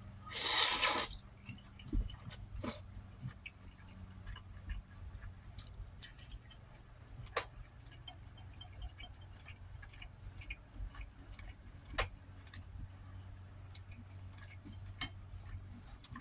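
A person eating close to the microphone: chewing with scattered wet mouth clicks and smacks. About half a second in, a loud rush of breath noise lasts under a second and is the loudest sound.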